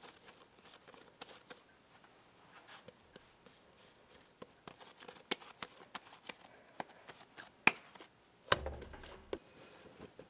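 Hands kneading and shaping a soft ball of dough, with many small sticky clicks and pats, then a short louder rustle near the end as the dough is set into a stoneware bowl and a cloth is handled over it.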